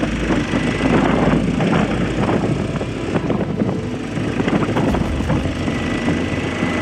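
Honda Transalp 650's V-twin engine running under way, with a leaking exhaust where a header stud is missing and a makeshift bolt has failed to seal it, so the engine sounds totally off.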